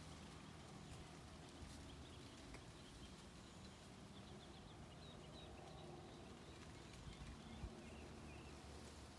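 Faint birds chirping in series of short, repeated notes over a low, steady background rumble, with a soft knock late on.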